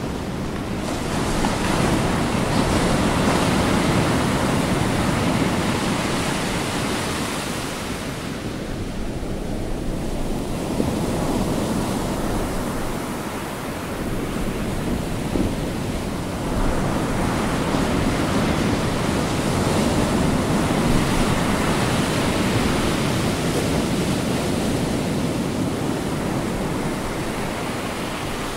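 Sea surf: a continuous rush of breaking waves that swells and ebbs every several seconds, with a sharp surge about two-thirds of the way through.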